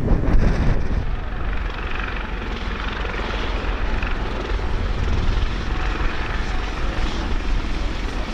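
Eurocopter EC120 Colibri helicopter flying low on its landing approach, its turbine and rotors running steadily.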